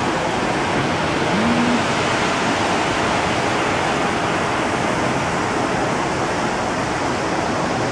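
Steady rushing noise of wind and water on the deck of a moving cruise ship.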